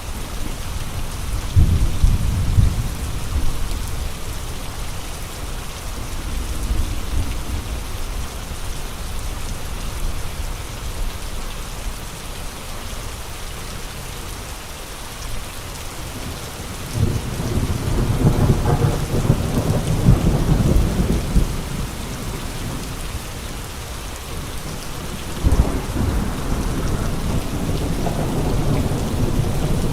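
Steady rain falling, with gusts of wind rising in low rumbling swells: a short one near the start, a longer one a little past the middle, and another near the end.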